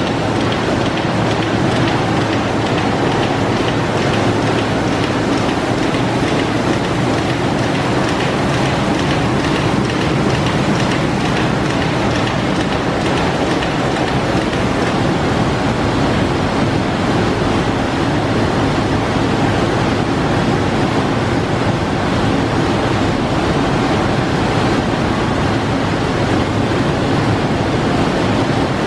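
Manroland Roland 708 eight-colour sheetfed offset press running in production: a loud, steady machine din with a faint, fast, even ticking over it in the first half.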